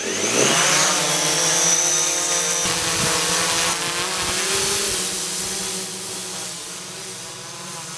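DJI Mavic Pro quadcopter's four motors and propellers spinning up for takeoff with a rising whine, then a steady buzzing hum as it flies overhead, fading somewhat near the end. The repaired drone is running and flying normally.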